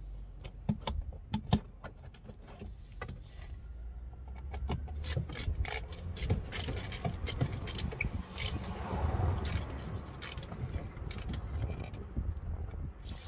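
Small metal clicks, clinks and scrapes of hand tools and fittings being handled while a car horn is worked on behind the wheel arch. There are two sharp clicks about a second in, then a busier run of small clicks and rattles in the middle.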